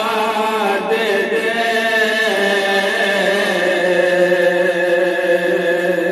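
A man singing a naat alone into a handheld microphone, without instruments, drawing out long held notes that slide from one pitch to the next. The second half is one long sustained note.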